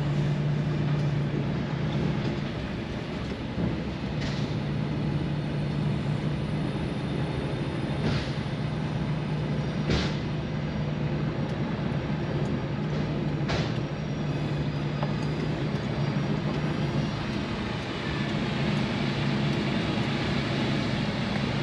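Lorry's diesel engine heard from inside the cab, running steadily at low speed as the truck rolls slowly into the rail shuttle's loading wagons. A few short sharp sounds cut across the drone about 4, 8, 10 and 13 seconds in.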